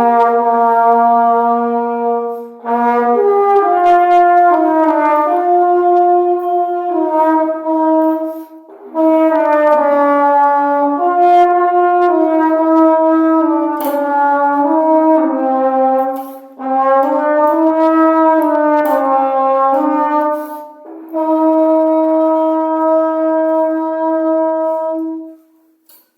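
Alto horn (genis) playing a slow melody of held notes in phrases, with short breaks for breath, ending on one long held note.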